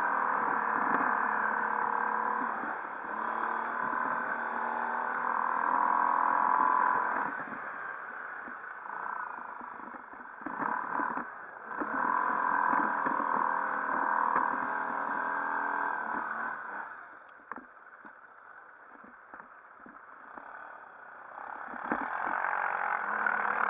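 ATV engines running, their pitch and volume rising and falling with the throttle. They fall quieter for a few seconds near the end, then pick up again.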